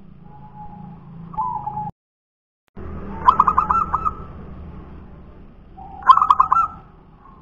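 A caged zebra dove (perkutut) cooing. A soft coo comes first, then two loud runs of quick staccato coo notes about three seconds apart. The sound drops out for almost a second before the first run.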